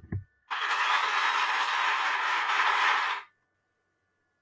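An even rush of noise, a sound effect, starting about half a second in, holding steady for nearly three seconds and then cutting off abruptly.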